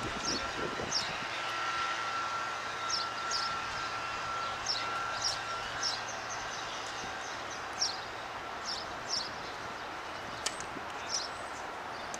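A small bird chirping over and over, short high calls every half second or so, over a steady hum of outdoor background noise. A single sharp knock comes near the end.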